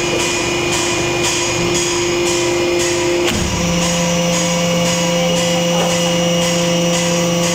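Hydraulic press running with a steady hum. About three seconds in there is a knock and the hum drops to a lower pitch as the die closes and takes the load of pressing a copper sheet into a bowl.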